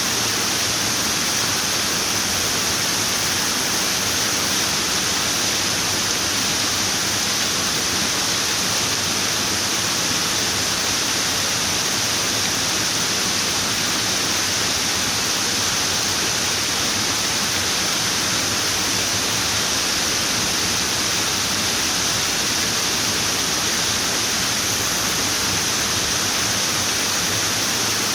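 Running water: a steady, unbroken rush with no change in level.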